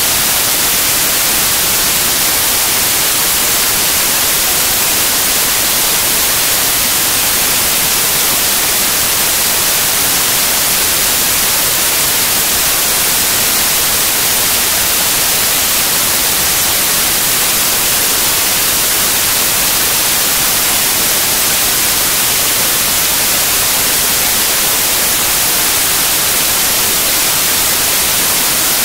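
Loud, steady static hiss, like white noise, unchanging throughout with nothing else in it.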